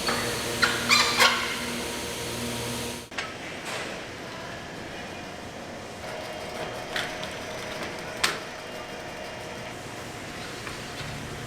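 A steady machine hum that cuts off about three seconds in, with a few sharp knocks and clacks around it.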